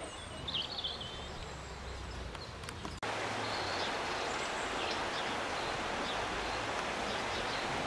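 Birds chirping over a quiet outdoor background, then, about three seconds in, a sudden cut to the steady, louder rush of a shallow river running over stones, with birds still chirping.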